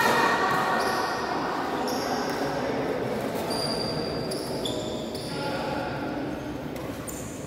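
Reverberant sports-hall ambience during a badminton match: a steady murmur of background noise, with several short, high squeaks of sneakers on the court floor between about three and a half and five and a half seconds in.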